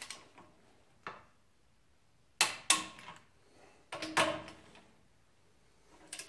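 Click-type torque wrench on the Ford 9-inch third-member nuts, giving several sharp metallic clicks with a brief ring as each nut reaches its 40 foot-pound setting.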